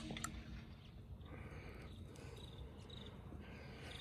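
Fading ring of car sheet metal just struck by a .25-calibre air-rifle pellet, dying away within the first second. Then a quiet outdoor background with a few faint chirps.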